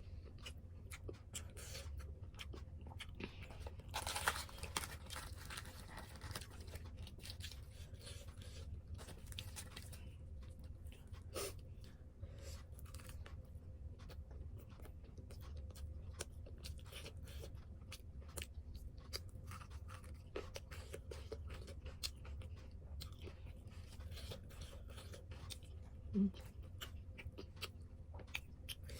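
Close-miked chewing and mouth sounds of a person eating puri and kheer: many soft wet clicks and smacks, with a louder burst of chewing about four seconds in.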